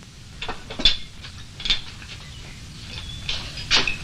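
Crockery being handled: a teapot and china knocking and clinking against each other and the counter, about five separate clinks, a few with a short bright ring.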